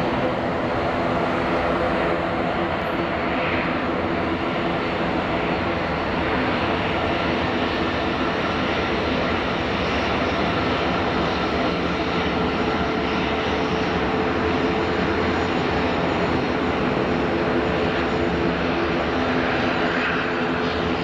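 Airbus A321neo airliner taxiing, its twin turbofan engines at low taxi power: a steady rumble and rush of noise with several held humming tones.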